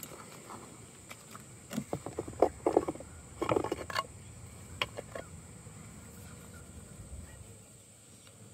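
A few short knocks and rustles in the first half, then a faint steady hum of honey bees inside the hive.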